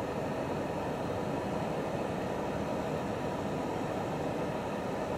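EMD GP38 diesel-electric locomotive standing and idling: a steady, even rumble with no change in pitch or level.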